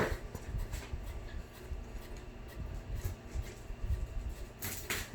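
Cardboard box being handled while its packing tape is cut with scissors: low knocks and rustling, a sharp click at the start and a brief scrape near the end.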